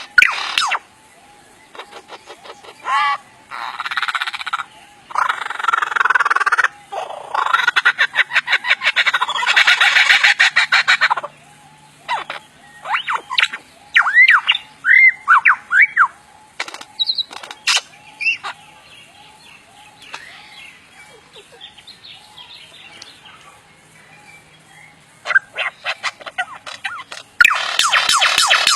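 A bird calling: several runs of harsh calls in the first part, then a string of short whistled notes that rise and fall, then fainter scattered calls.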